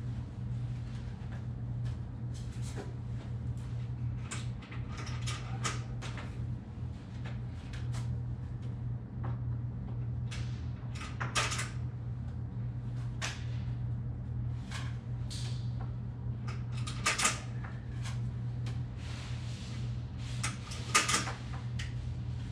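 Plastic parts of vertical blinds clicking and rattling as they are handled and clipped in at the headrail, in scattered short bursts; the sharpest clicks come at about the middle and near the end. A steady low hum runs underneath.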